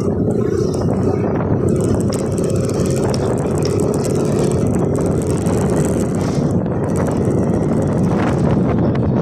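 Motorcycle engine running at a steady cruising speed, with wind rushing over the microphone that grows stronger near the end.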